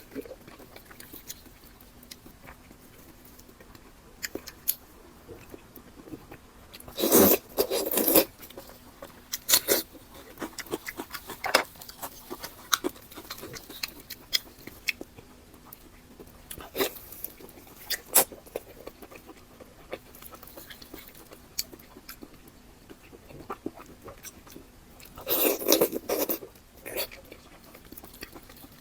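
Close-miked eating: scattered chewing, biting and mouth smacks with small crunches, and two louder, longer bursts of eating noise, about 7 seconds in and again near the end.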